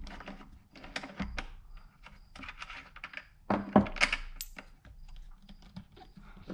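Skate tool unscrewing the kingpin nut on a skateboard truck, then the small truck parts pulled off the kingpin by hand: a string of small clicks and knocks, with the loudest clatter a little past halfway.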